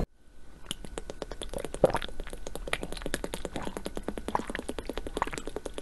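Water bubbling and fizzing: a dense, irregular run of small pops and clicks.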